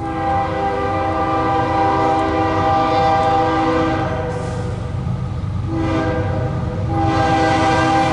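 Diesel freight locomotive's multi-chime air horn blowing as the train approaches: a long blast of about four seconds, a short toot about a second and a half later, then another long blast about a second after that. A steady low rumble runs underneath.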